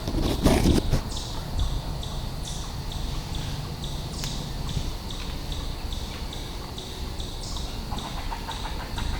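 Footsteps crunching and rustling through dry leaves on the woodland floor, loudest about half a second in. A steady high chirp repeats about twice a second behind them.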